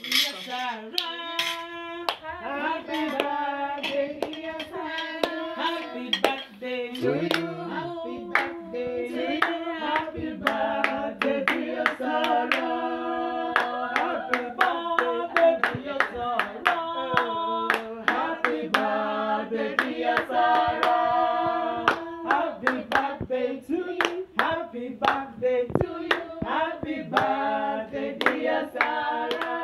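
A small group singing together and clapping along in a steady rhythm.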